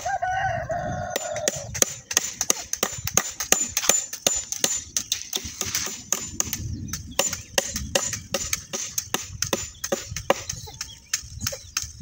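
A rooster crows once, for about two seconds, at the start. Then comes a long run of sharp, irregular clicks and knocks, several a second, from work on a chain-link fence: nails being driven into wooden poles and wire mesh being handled.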